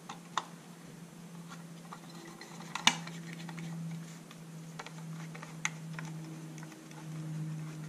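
Scattered light metallic clicks and taps as a hand seats the ignition cover plate onto a 3 hp Johnson outboard's flywheel; the sharpest click comes about three seconds in. A steady low hum runs underneath.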